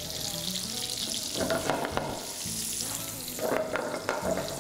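Whole spices (bay leaf, cinnamon bark, cardamom and star anise) sizzling steadily in hot olive oil and butter in a frying pan. A few light clicks come about one and a half seconds in and again near the end.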